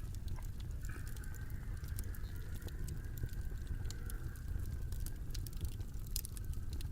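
Background ambience: scattered crackles and clicks over a steady low rumble, with a faint high whistling tone.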